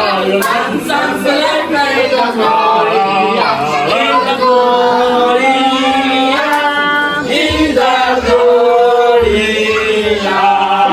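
Several voices singing a song together, with long held notes.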